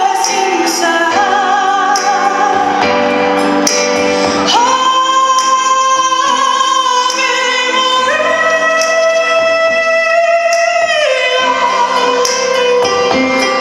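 A woman singing into a microphone over instrumental accompaniment, holding long notes with vibrato: one from about four and a half seconds in, which steps up to a higher held note at about eight seconds and drops back down near eleven seconds.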